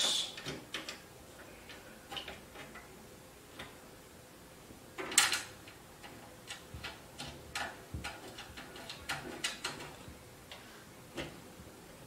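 Light, irregular clicks and ticks of the side-panel screw being turned into the back of a desktop computer tower case, with one louder knock about five seconds in.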